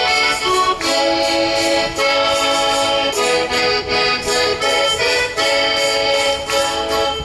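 Accordion music: held chords that change about once a second. Singing begins just after.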